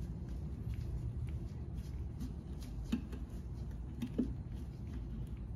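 Faint, scattered clicks and small knocks of oil pan bolts being threaded in by hand, over a steady low hum.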